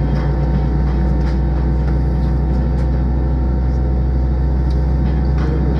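Steady low cabin drone of an Airbus A321-200 on the ground, with several steady hum tones.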